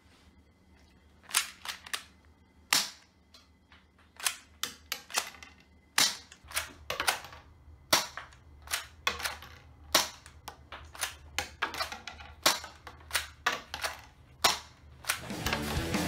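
Toy Colt 1911 shell-ejecting pistol fired over and over, starting about a second in: sharp, irregular plastic clacks, with the ejected toy shells clattering and bouncing on wooden floorboards. Soft outro music comes in near the end.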